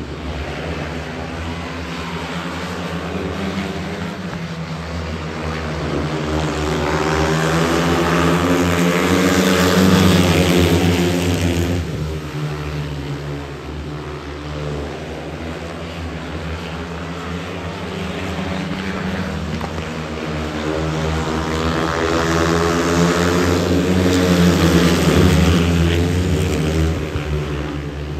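Speedway bikes' 500cc single-cylinder methanol engines racing in a four-rider heat, the buzzing drone swelling loud twice, about fifteen seconds apart, as the pack passes and fading as the bikes go round the far side.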